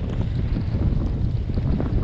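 Wind buffeting a helmet-mounted GoPro's microphone in a snowstorm: a steady, loud low rumble.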